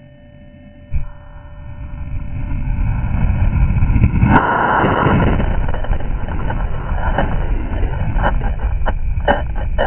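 Model rocket motor igniting and the rocket leaving the launch rail, heard slowed to a fifth of its speed. A rush of noise builds from about a second in to a loud blast a little past four seconds, then a steady deep roar with scattered sharp cracks near the end.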